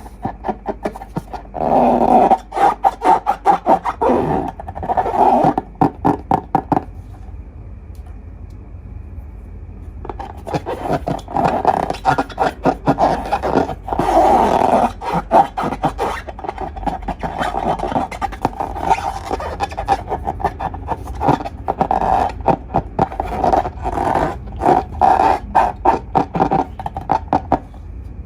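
Slime and long balloons being squeezed and worked by hand: runs of rapid wet clicks and crackles with a rubbing, squeaky note, in bursts, with a quieter pause about seven seconds in.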